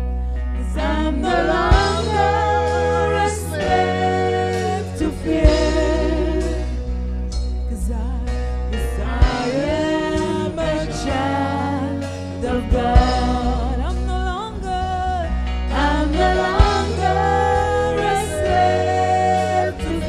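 Live gospel worship song: a woman's lead vocal sung with vibrato into a microphone, over a band with a steady bass line and occasional drum hits.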